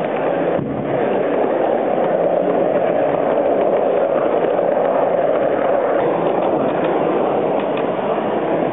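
O gauge model Southern Region electric multiple unit running past on its track, a steady running noise of wheels on rail and motor.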